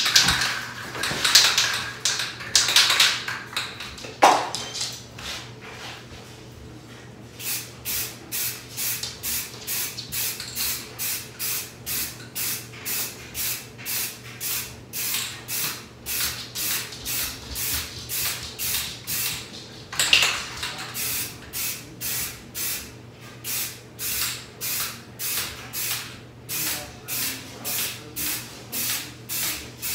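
Aerosol can of Rust-Oleum NeverWet frosted glass spray hissing onto window glass as the base coat goes on. A few louder, irregular sounds come in the first seconds. From about seven seconds in, the hiss comes in short, even bursts, about two a second.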